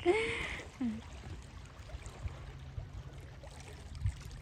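A short vocal sound in the first second, then steady low wind rumble on the microphone with faint water lapping against the shore rocks.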